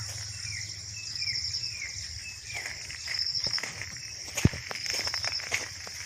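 Insects trilling steadily, swelling in regular pulses about once a second, with a run of short falling chirps repeated under them. A single sharp knock about four and a half seconds in.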